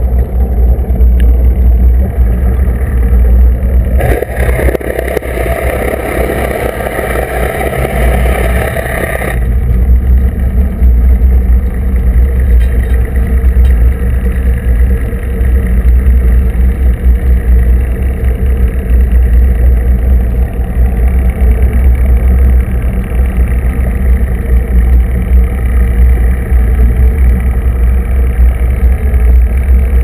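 Twin Yanmar marine diesel sterndrive engines running, heard underwater as a steady low drone with a hum from the engines and a wash of water and bubbles along the hull. A louder hiss starts about four seconds in and cuts off suddenly near nine seconds.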